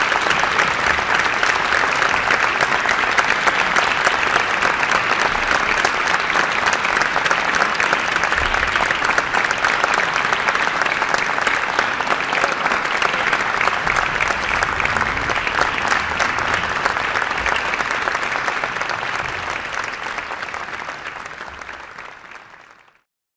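Audience applauding steadily, a dense continuous clapping that fades out near the end.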